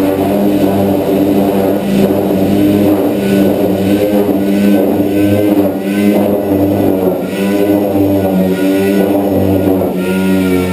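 Orbital sander running steadily against the sheet-metal roof of a truck cab, stripping the paint: a continuous hum that wavers a little as the tool is pressed and moved.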